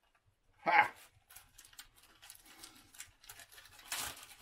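A short exclamation, then faint crinkling and rustling of a thin plastic bag being pulled open by hand, with a louder rustle near the end.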